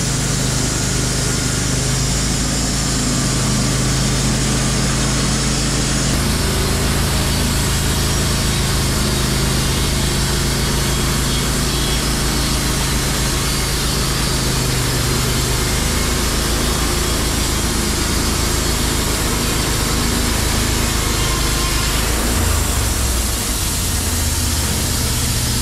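Wood-Mizer LT15 Wide portable bandsaw mill running, its band blade sawing through a hemlock log. The steady drone shifts in pitch about 6 seconds in and again about 22 seconds in.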